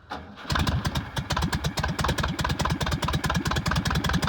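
VW Beetle's air-cooled flat-four engine running with a rapid, even pulse that comes in about half a second in.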